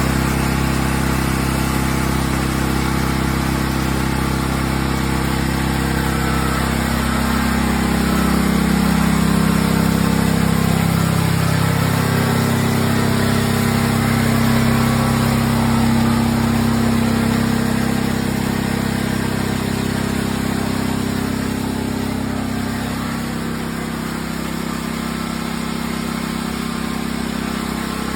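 An engine running steadily, its note shifting and growing a little louder through the middle stretch before settling again.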